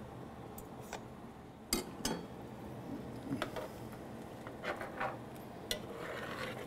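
Metal spoon and ladle stirring a thick stew in a large aluminium pot, with a few separate clinks and scrapes of metal against the pot.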